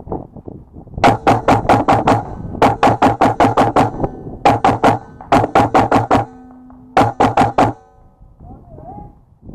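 Airsoft submachine gun firing four rapid strings of shots, about seven a second, each shot a sharp crack.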